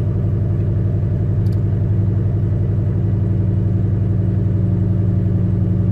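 Lexus LS400's turbocharged 1UZ V8 engine idling steadily, with a light click about one and a half seconds in.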